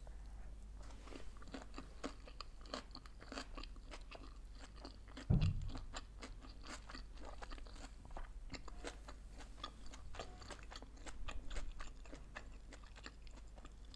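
Close-miked chewing of sushi rolls: a steady run of small crisp crunches and mouth clicks, with one low thump about five seconds in.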